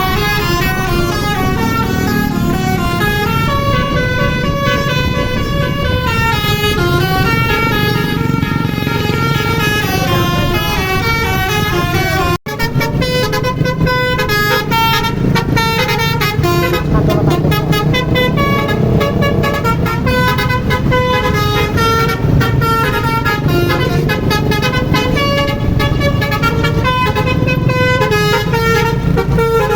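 Bus basuri musical air horn playing a fast melody, its notes stepping quickly up and down, over a steady low rumble. The sound breaks off for an instant about twelve seconds in, then the tune carries on.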